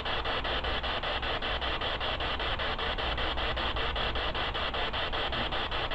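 Spirit box sweeping through radio stations: a steady hiss of radio static chopped into even pulses several times a second.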